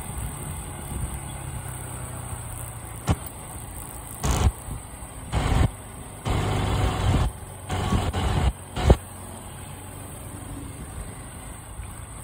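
Motorcycle engine running steadily while riding along, with several loud bursts of wind noise on the microphone between about three and nine seconds in.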